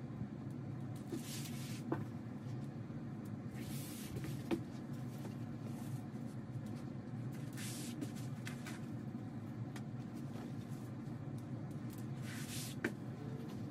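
Cotton quilt blocks handled and pressed onto a fabric design wall: a few short, soft rustling swishes and light taps over a steady low hum.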